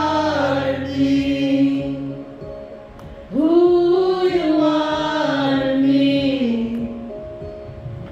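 Live worship music: a slow song with two long held sung phrases, each stepping down in pitch as it ends, over soft accompaniment.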